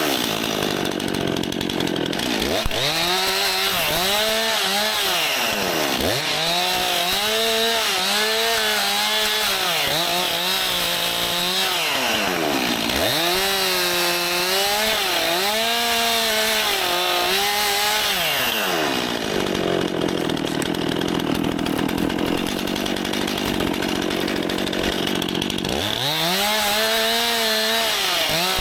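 Stihl MS261 C-M two-stroke chainsaw cutting wood. The engine pitch sags again and again as the chain bites, then climbs back to full revs between cuts. A longer low stretch of about seven seconds comes past the middle.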